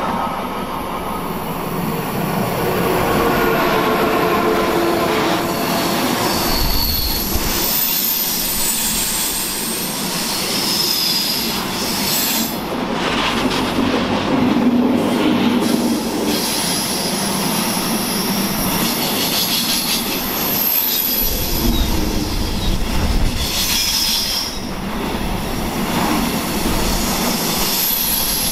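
Freight train of semitrailers on pocket wagons rolling past close by: a steady rumble of wheels on rail with high squealing tones that come and go.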